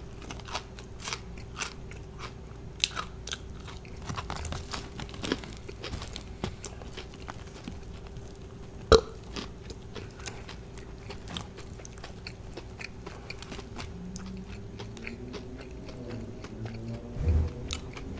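A person chewing and crunching KFC fried chicken eaten by hand, with many small wet mouth clicks and smacks. One sharper, louder click comes about nine seconds in.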